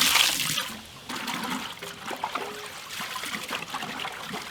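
Running water gushing, cut off about a second in, followed by quieter trickling and small splashes and knocks as scaled fish is washed by hand.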